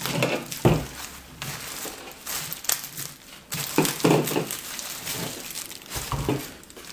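Plastic bubble wrap and sheeting crinkling and rustling in irregular bouts as a taped, bubble-wrapped package is handled, with a few light knocks.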